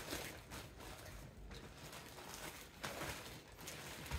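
Faint rustling and handling of small product packaging, with a soft tap about three seconds in.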